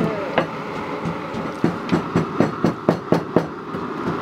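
A quick run of sharp metallic clanks, about four a second, at a large aluminium cooking pot as a metal ladle stirs and cut vegetable pieces go into the simmering broth.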